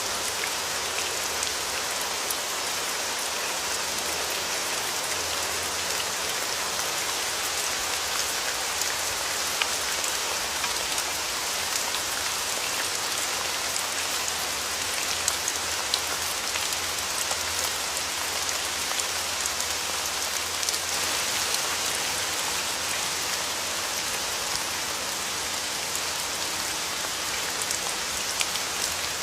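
Steady rain falling, a dense even hiss of many drops with scattered louder individual drop ticks.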